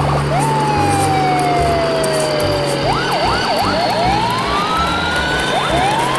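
Electronic siren wailing: one long, slowly falling tone, then a few quick up-and-down yelps about three seconds in, then rising whoops.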